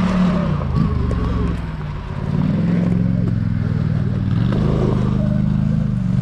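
Polaris Sportsman 850 ATV engine running under load on the trail. It eases off about two seconds in, then picks back up and holds steady.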